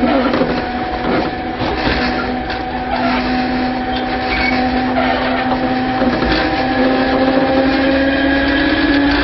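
Interior running sound of a Tobu 5050 series electric train with nose-suspended traction motors: a loud motor-and-gear whine in several pitches over rumble and knocks from the track. The whine rises slowly in pitch in the second half as the train picks up speed.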